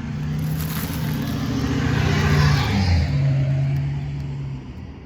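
A car driving past: engine and tyre noise build up to a peak about halfway through, then fade away.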